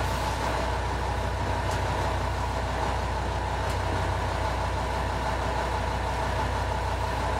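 Fishing boat's engine running steadily: an even, low drone.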